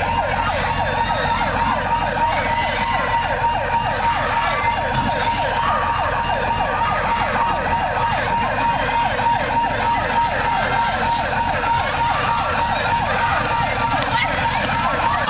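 Fire truck siren sounding a fast repeating yelp, several sweeps a second, over a steady low rumble.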